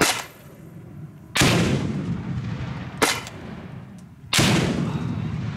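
LG-440 revolving 40mm grenade launcher firing two rounds. Each sharp shot is followed about a second and a half later by a heavier blast with a long rolling tail, the grenade exploding downrange.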